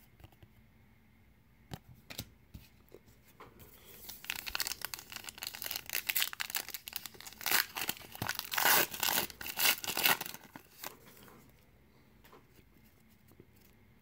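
The wrapper of a 2019 Donruss baseball card pack crinkling and tearing as the pack is opened, starting about four seconds in and stopping about ten seconds in. A few light clicks of cards being handled come before it.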